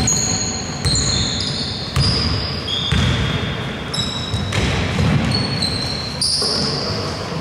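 A basketball bouncing on a hardwood gym floor, about one bounce a second, with short high squeaks of sneakers on the court.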